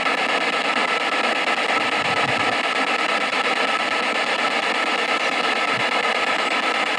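P-SB7 spirit box scanning radio frequencies in forward sweep at 100 ms per step: a steady wash of radio static.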